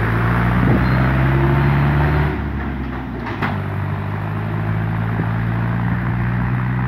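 Ursus 4011 tractor's four-cylinder diesel engine running steadily under load as it pulls two loaded grain trailers away. Its note shifts about two seconds in, and a couple of short knocks are heard.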